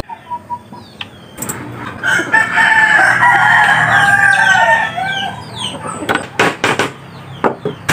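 A rooster crows once, a long call of about three seconds and the loudest sound here. Near the end a hammer taps several times in quick succession, tacking thin wooden strips onto a wooden picture frame.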